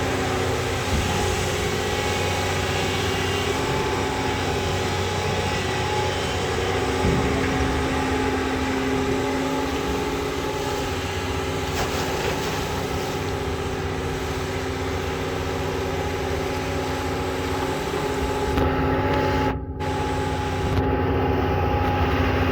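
Doosan long-reach excavator's diesel engine running steadily, a constant hum with a low rumble, briefly cut off about twenty seconds in.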